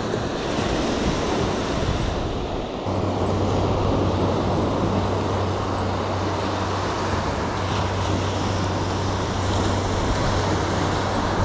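Steady rush of small waves breaking and washing up a sandy beach, with a low steady hum joining about three seconds in.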